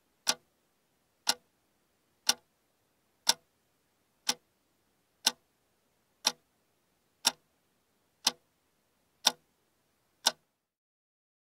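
Clock ticking: sharp, evenly spaced ticks exactly once a second, eleven in all, stopping about a second before the end.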